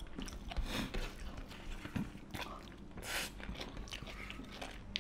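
Eating sounds: irregular chewing and mouth smacking, with short wet clicks as fingers work rice and chicken curry on steel plates.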